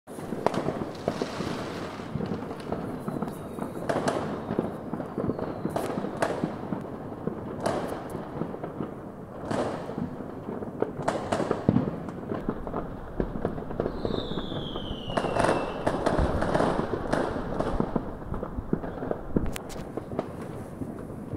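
Many fireworks going off at once: a dense, steady crackling and popping with sharp bangs every second or two. Twice a whistling firework sounds, falling in pitch, the louder one about 14 seconds in.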